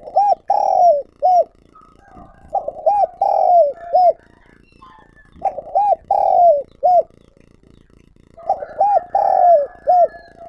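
Spotted dove cooing its song: four phrases about three seconds apart, each a quick run of short arched coos with one longer drawn-out coo in the middle. Faint chirps of other small birds sound between the phrases.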